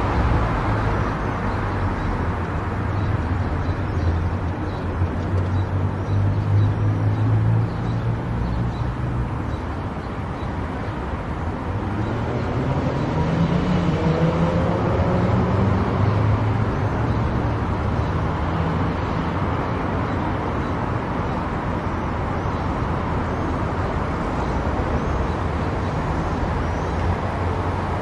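Car driving along a highway: steady engine and tyre-on-road noise with a low hum, and a pitch that rises for a few seconds about halfway through.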